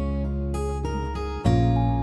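Background music of strummed guitar chords, with a new chord struck about one and a half seconds in.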